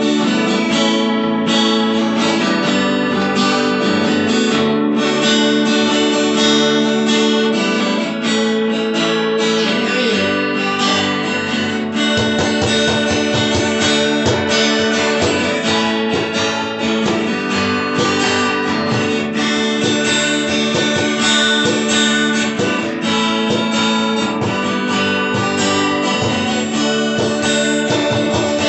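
Two acoustic guitars strummed and picked together in a live instrumental passage.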